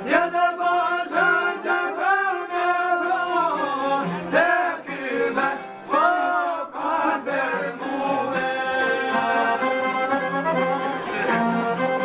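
Albanian folk song: a man sings in long, bending phrases over long-necked lutes (çiftelia) and an accordion. The singing stops about two-thirds of the way in and the instruments carry on alone.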